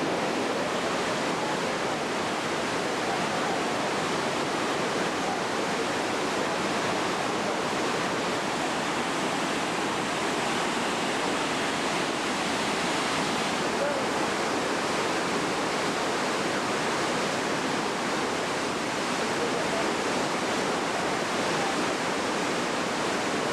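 Whitewater river pouring over a falls in a rapid: a steady, unbroken rushing of water.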